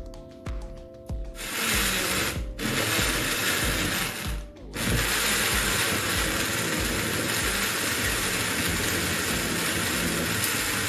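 Countertop electric blender puréeing fresh tomatoes, red peppers and onions. It switches on about a second and a half in and stops briefly twice. It then runs steadily, turning the chunks into a smooth red purée.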